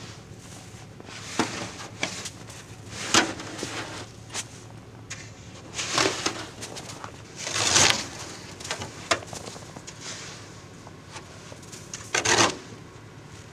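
Snow brush sweeping heavy snow off a pickup truck's roof and side, a series of irregular swishing strokes, with snow sliding and dropping off the body.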